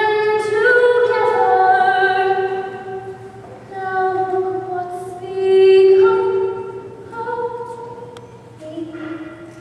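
A girl singing a slow song solo without accompaniment, holding long notes that ring in the hall. The song trails off to a last, quieter note near the end.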